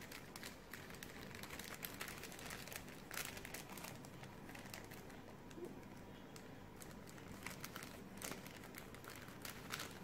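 Faint crinkling and rustling of a sheet of paper being folded and creased by hand, with scattered crisp ticks.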